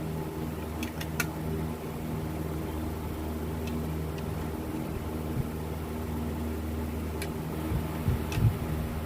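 A steady machine hum, with a few light clicks.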